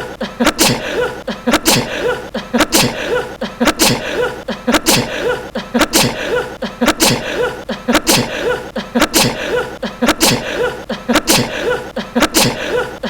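A young man sneezing over and over, about once a second. Each sneeze is a brief falling vocal sound that ends in a sharp burst.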